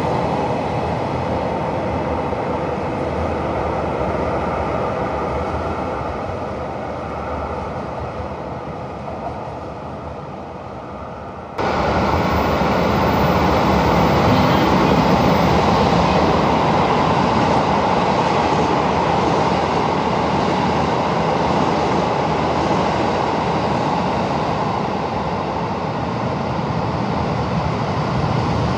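JR Hokkaido electric multiple-unit train running out of service past a station platform, its running noise slowly fading. About twelve seconds in, the sound cuts suddenly to louder, steady station ambience as a Rapid Airport electric train approaches from a distance.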